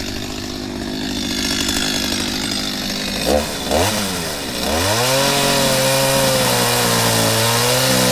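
Two-stroke chainsaw running at low speed. It is blipped twice about three seconds in, then opened up and held at a steady high speed.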